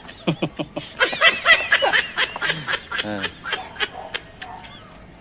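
People laughing in quick bursts of chuckling, which trail off near the end.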